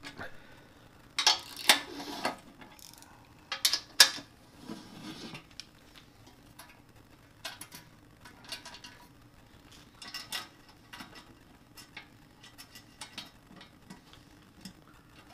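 Hand socket ratchet on a long extension clicking as oil pan bolts are worked, with sharp metal clinks of the tool and bolts against the steel pan. The loudest clinks come in two clusters in the first four seconds, then lighter scattered clicks follow.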